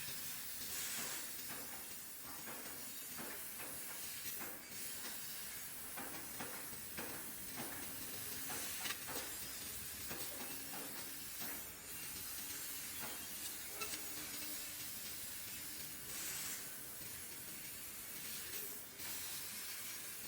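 CNC laser cutter cutting red copper sheet: a steady hiss of the cutting gas jet, with irregular sharp crackles and pops.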